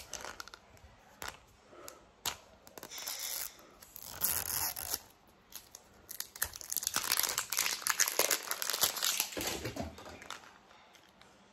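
Plastic wrapper being torn and peeled off a 5 Surprise Mini Brands capsule ball, crinkling. A few short tears come first, then a long stretch of dense crinkling from about six to ten seconds in as the wrapper comes away.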